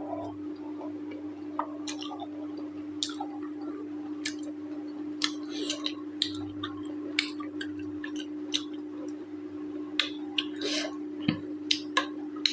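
Close-up eating sounds: irregular wet smacks and clicks of chewing mutton curry and rice, the meat tough and fatty. A steady low hum runs underneath.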